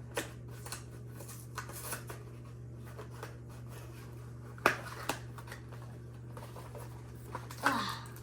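A trading-card starter deck box being opened from the bottom by hand: scattered light clicks and rustles of card packaging, with sharper rustles about four and a half seconds in and again near the end, over a steady low hum.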